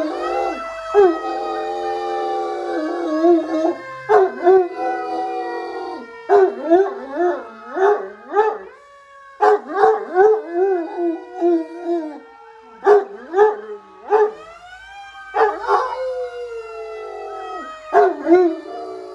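Great Dane howling along with a fire engine siren playing from a television: the dog's long wavering howls come in broken runs, while the siren's wail climbs steeply twice, just after the start and again about three-quarters of the way through, and sinks slowly in between.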